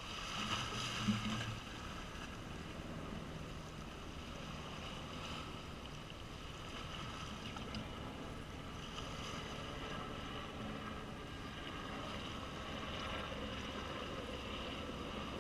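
Small sea waves washing and splashing against shoreline rocks, a steady rush with wind on the microphone, briefly louder about a second in.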